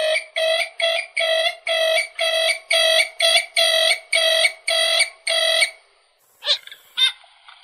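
Purple gallinule calling: a steady series of evenly spaced, repeated notes, about two and a half a second, which stops around six seconds in, followed by two short, sharper calls.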